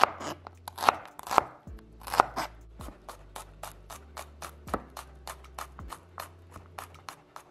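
Chef's knife chopping shallots and mincing garlic on a plastic cutting board: a few sharp, heavy cuts in the first two seconds, then quicker, lighter taps.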